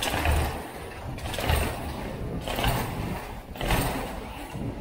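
Mountain bike riding fast through a hard-floored underground passage: wind rushing over the camera's microphone and tyres rolling on the tiles, swelling and fading about once a second.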